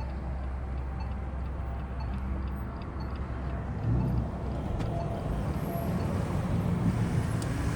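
A car driving: a steady low rumble of engine and road noise, a little louder about four seconds in.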